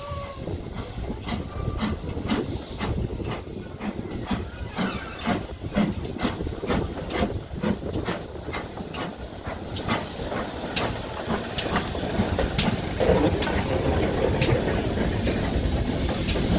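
GWR steam locomotive working, its exhaust beats quickening from about two to about three a second, then becoming sparser and more irregular. A steady hiss of steam grows from about halfway through.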